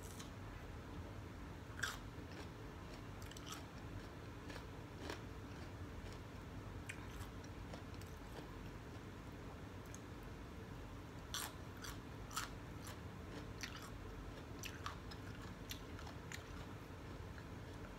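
Close-up chewing of crunchy raw cucumber, faint, with scattered short crunches, more of them about two-thirds of the way through.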